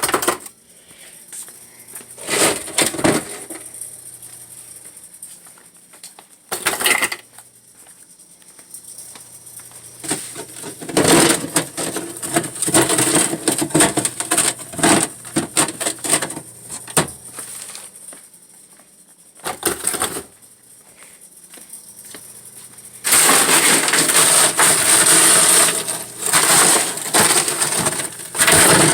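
Ice and frost being chipped, scraped and broken out of a 1960s Frigidaire refrigerator's freezer compartment by hand, with chunks of ice knocking and clattering. It comes in irregular bursts, the longest and loudest about a third of the way in and near the end.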